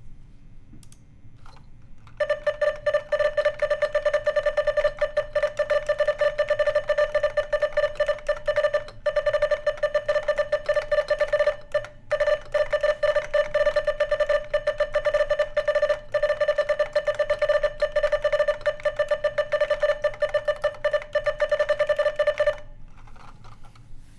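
IBM Pingmaster keyboard with SKCC green switches being typed on rapidly for about twenty seconds: a dense stream of key clicks over a loud, steady metallic ringing ping that starts and stops with the typing, briefly breaking off about halfway through.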